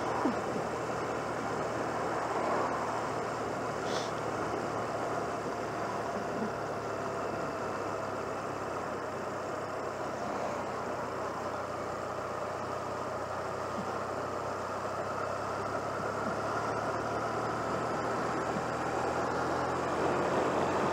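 1996 Honda CMX250C Rebel's 234 cc parallel-twin engine running steadily while riding along at a moderate speed, heard from the rider's seat over a constant rush of noise. There is a brief high click about four seconds in, and the engine grows a little louder near the end.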